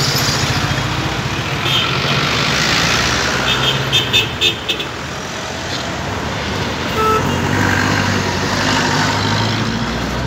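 Busy street traffic with engines idling and passing, and a quick string of about five short horn toots about four seconds in.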